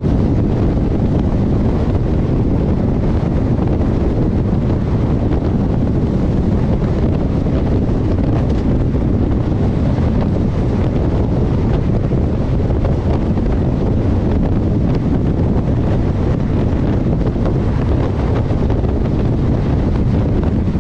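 Wind buffeting the microphone over the steady running rumble of a moving passenger train.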